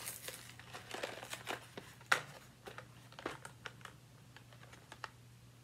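Cardboard Mike and Ike candy box being torn open by hand: irregular crackles and sharp snaps of cardboard, the loudest about two seconds in.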